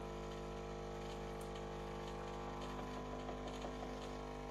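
Melitta CI Touch coffee machine's water pump humming steadily as it pushes water through the newly fitted flow meter during the rinse, with a few faint light ticks in the second half.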